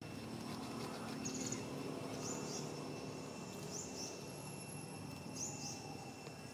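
Outdoor natural ambience: a steady thin high insect tone, with short high chirps repeating about every second and a half.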